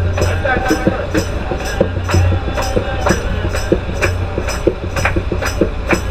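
Background music with a steady beat: tambourine-like percussion strikes about twice a second over a deep bass line.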